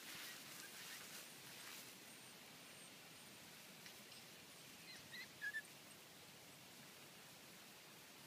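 Near silence, with faint rustling in the first couple of seconds and two or three brief high-pitched squeaks about five seconds in.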